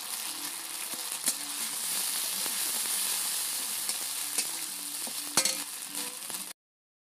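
Chopped onion and spice paste sizzling in hot oil in a metal kadai, stirred with a metal spatula that clicks and scrapes against the pan. The sound cuts off suddenly about six and a half seconds in.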